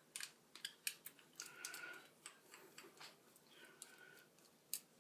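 Small screwdriver backing a tiny screw out of a laptop's metal drive bracket: faint, irregular clicks and ticks, with two brief faint squeaks about one and a half and three and a half seconds in.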